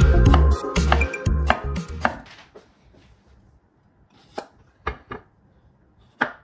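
Chef's knife chopping rapidly on a wooden cutting board, dicing tomato, over background music that fades out about two seconds in. Then four separate knife cuts through a cucumber onto the board.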